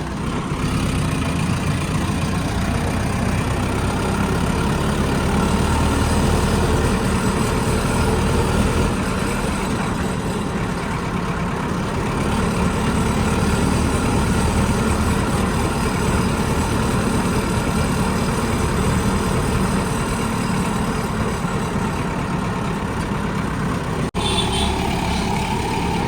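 Vehicle engine running steadily while on the move, with a brief break about 24 seconds in.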